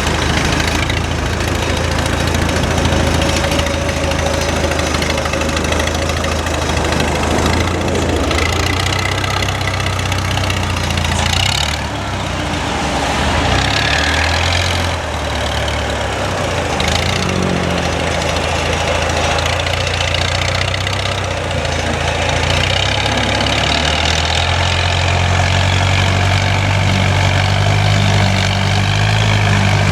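Heavy machinery's diesel engine running and working, its low hum stepping up and down in pitch as the revs change, with a rising and falling whine around the middle.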